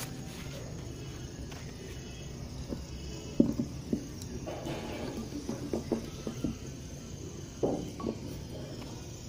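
Wet clay diya and kulhad knocking against each other and the tabletop as they are handled: short dull knocks, the loudest about three and a half seconds in, a cluster in the middle and two more near the end, over a low steady hum.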